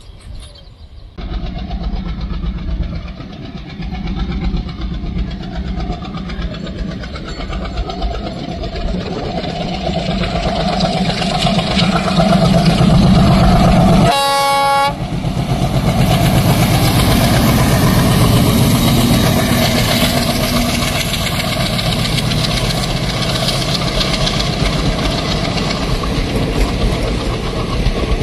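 Twin ALCO diesel locomotives working a train, their engine noise growing louder over the first half, with one short horn blast about halfway through; the loud engine and train noise carries on after it.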